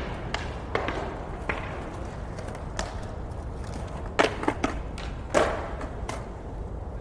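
Skateboards on a concrete plaza: sharp clacks of boards hitting and landing on the pavement, several in quick succession about four seconds in and another loud one a second later. Underneath is a steady hum of city background.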